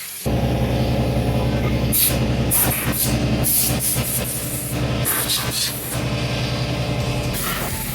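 A motor starts abruptly and runs steadily at a constant pitch, with short hissing spray bursts over it.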